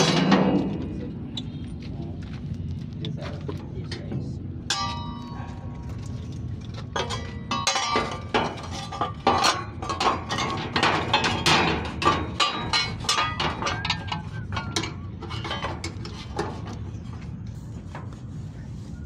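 Scattered metal clinks and knocks of hand tools and parts during work on a generator set's radiator, some ringing briefly, over a steady low background noise, with a louder burst right at the start.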